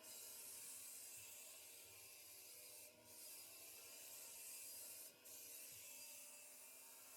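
Faint, steady gritty hiss of a floor sander working on hardwood, with brief drops about three and five seconds in.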